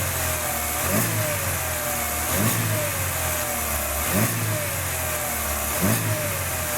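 Chevrolet Spin's four-cylinder engine revved in four short throttle blips, about one every one and a half to two seconds, each rising and falling back to idle. With the timing belt correctly tensioned, there is no belt slap against the timing-belt cover.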